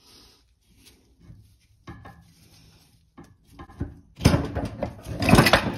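Metal knocking and scraping from a Porsche 924 Turbo wastegate's spring housing being worked loose by hand. It starts as scattered light clicks, then about four seconds in turns into a dense run of louder clattering and scraping.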